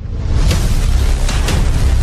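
Background music with heavy bass, swelling back up over the first half second, with a few sharp hits about half a second in and again past the middle.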